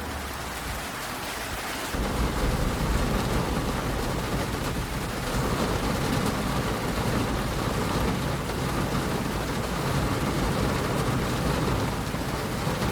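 Heavy rain falling steadily, with a low rumble that comes in about two seconds in and holds steady.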